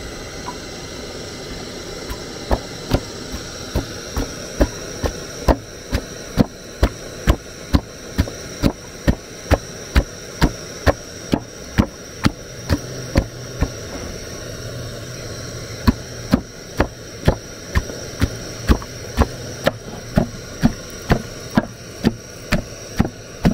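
Wooden pestle pounding palm nut fruits in a wooden mortar, crushing the fleshy fruits to loosen the pulp from the nuts. It goes as a steady run of dull knocks, about three every two seconds, with a short pause about halfway, over a steady background hiss.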